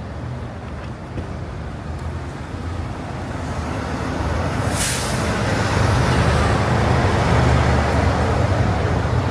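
Street traffic: a vehicle's engine rumble growing louder, with a short sharp hiss about five seconds in.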